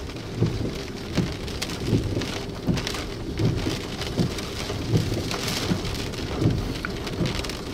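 Rain falling on a surface during a thunderstorm, with a soft low thump repeating about every three-quarters of a second.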